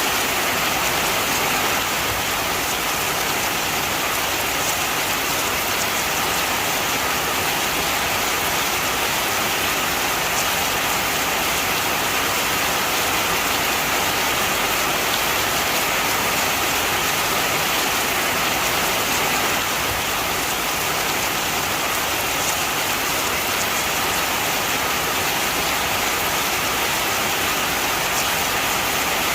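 Heavy rain falling steadily, an even hiss of rain on surfaces with no thunder or breaks.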